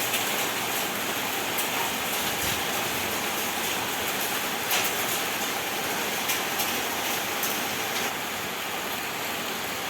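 Steady downpour of rain with small hailstones hitting a roof, with a few sharp ticks of individual hailstones striking.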